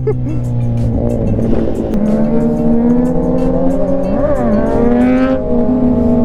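Several Kawasaki Z900 inline-four engines running together on the move, their exhaust notes holding steady and then rising as the bikes rev up a few seconds in.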